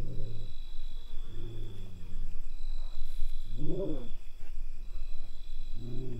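Crickets trilling steadily. Over them, a low pitched animal call repeats about every one and a half seconds; the call about four seconds in rises and falls in pitch and is the loudest.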